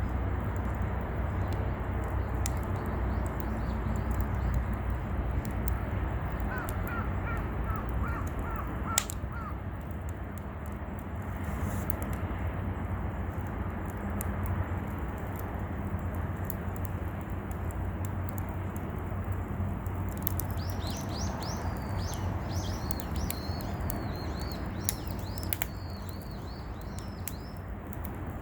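A crow cawing in a quick run of about seven calls, and later a small bird twittering in high, rapid chirps, over a steady low rumble of outdoor ambience. A single sharp click comes near the middle.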